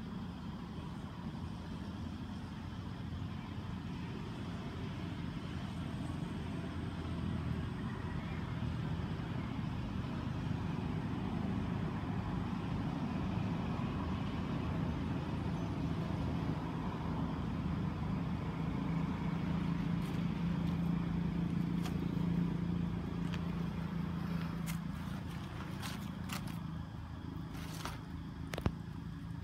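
A motor engine's low steady hum, growing louder toward the middle and easing off near the end, with a few sharp clicks in the last seconds.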